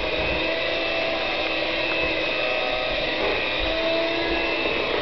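Steady whirring of a small electric motor, running without change.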